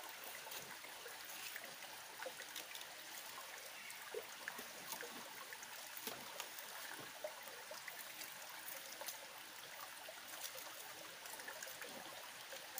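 Faint, steady rush of running water from a stream, with small scattered clicks and scrapes from knives peeling and cutting taro corms.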